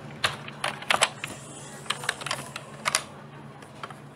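Computer keyboard keys clicking in an irregular run of keystrokes, with small clusters of quick taps about a second in and again near three seconds, as text is typed.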